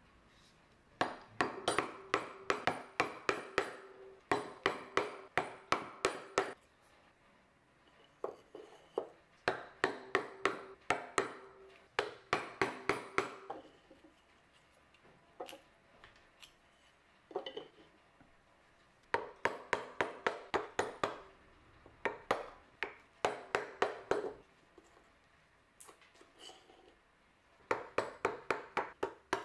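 Chisel being struck with quick, light, repeated blows, about three a second in short runs with pauses between, some blows ringing briefly: chopping out the waste between dovetails.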